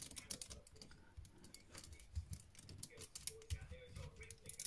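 Lego Technic plastic parts clicking and tapping as they are handled and fitted, a run of light, irregular clicks.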